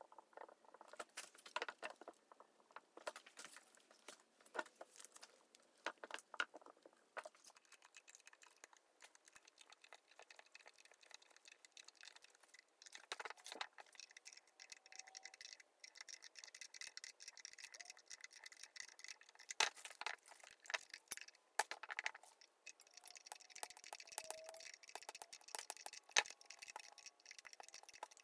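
Scattered light clicks and clinks of a hex key and a wrench working bolts against the metal housing as a feed motor is bolted onto its gearbox.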